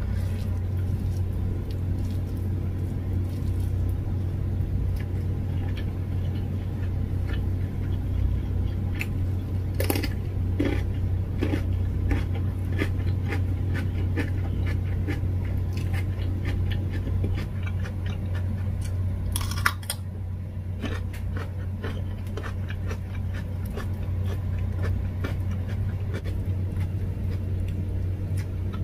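Person eating: crunchy bites into a raw cucumber and chewing, with many short crisp crackles and a couple of sharper crunches, over a steady low hum.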